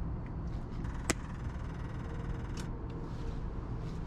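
An RV generator control switch clicks once about a second in, over a steady low rumble; a faint steady hum follows as the Onan 6000 generator is primed before starting.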